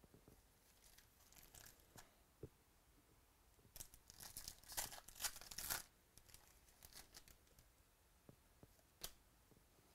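A foil trading-card pack wrapper being torn open by hand: a crinkly rip about four seconds in that lasts about two seconds. Lighter crinkles and a click come from handling the pack and cards.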